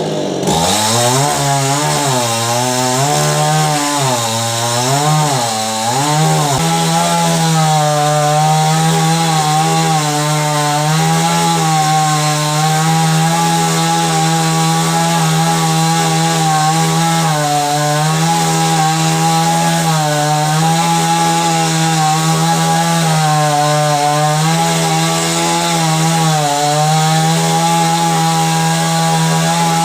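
Chainsaw engine starting up and revving up and down a few times over the first six seconds, then running steadily at high speed with small dips in pitch.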